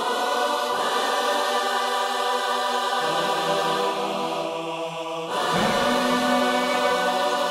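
Background music of slow, sustained chords, changing about three seconds in and again about two seconds later.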